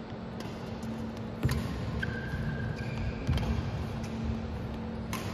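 Badminton rally: sharp racket-on-shuttlecock hits every one to two seconds, the loudest about a second and a half in, with short high shoe squeaks on the court over a steady low hum.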